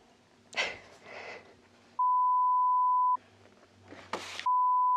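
Two censor bleeps, each a steady single-pitched beep that replaces the audio: the first starts about two seconds in and lasts about a second, the second starts about four and a half seconds in. Faint rustling comes between them.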